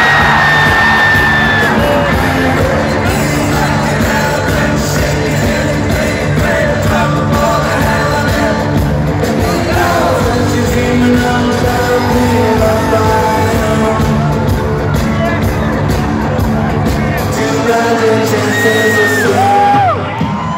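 A live band playing in an arena, recorded from among the crowd: synth-heavy psychedelic rock with singing, and yells and whoops from the audience. Near the end the bass drops out for a moment.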